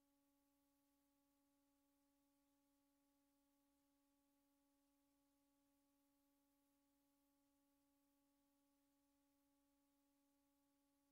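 Near silence: only a very faint, steady hum with a faint hiss, unchanging throughout.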